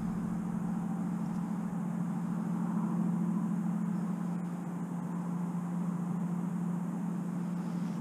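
Bow-mounted electric trolling motor running with a steady, even hum.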